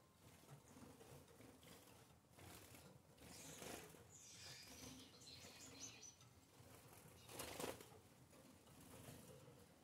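Very faint cage-bird sounds: soft, high, gliding calls from Gouldian finches about three and a half to six seconds in, and a short rustle of wings about seven and a half seconds in.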